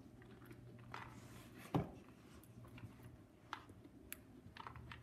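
A basset hound pushing a plastic treat-dispensing ball toy about with her nose on carpet: faint scattered clicks and knocks, with one louder thump just under two seconds in.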